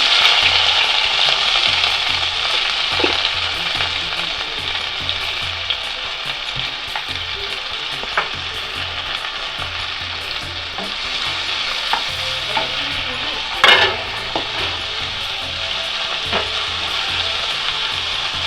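Onions sizzling in hot coconut oil with browned garlic, just added to the pan. The sizzle is loudest at first and then eases, with occasional stirring clinks, the sharpest about fourteen seconds in.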